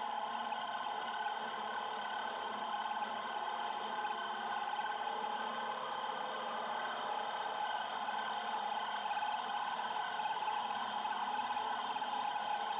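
Milling machine running steadily while a 16 mm twist drill bores into a lathe top slide to rough out a hole. The motor and drive give a constant hum with several steady tones, and the drill cuts with no pauses.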